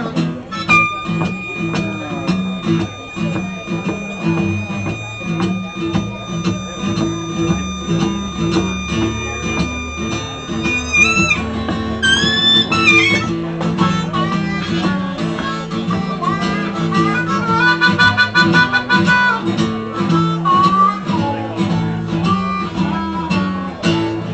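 Blues harmonica solo over strummed acoustic guitar. The harmonica holds one long note for about ten seconds, then bends and slides between notes, and warbles in a fast trill a little past the middle.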